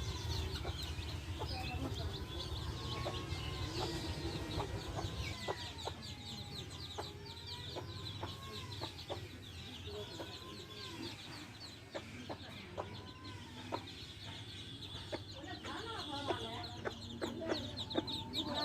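A hen clucking while her baby chicks peep constantly in rapid, high-pitched chirps.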